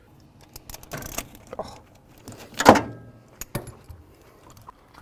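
Irregular metallic clinks and rattles of hand tools and a spark plug being handled at an engine, while a plug is pulled to check its gap. There is one louder clatter a little past halfway.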